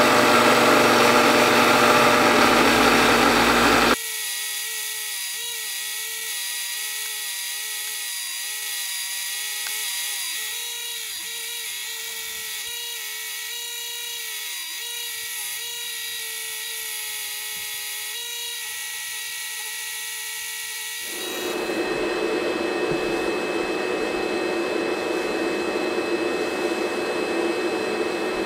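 Bench grinder wheel scrubbing a grease-caked vise spring, loud and even, cutting off about four seconds in. Then a power tool's whine that wavers in pitch as it is worked, and for the last quarter the steady hiss of abrasive blasting in a blast cabinet.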